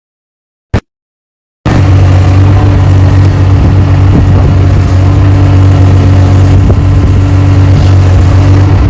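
A single short click, then a loud, steady engine rumble with a low hum that starts abruptly about one and a half seconds in.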